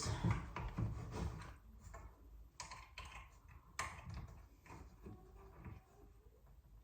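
Scattered light clicks and knocks of a metal door hinge and screws being handled and set against the wood, with a few sharper taps among quieter rustling.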